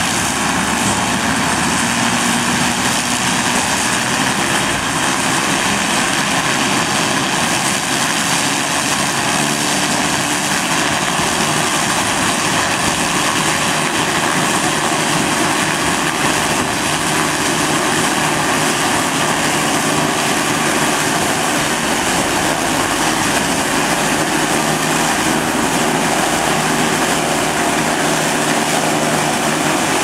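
Corn harvester running with its engine and machinery at work, giving a loud, steady, unbroken mechanical noise.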